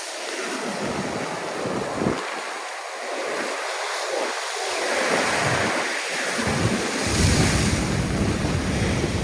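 Storm surf breaking and washing in heavy swells, with wind buffeting the microphone as a low rumble from about seven seconds in.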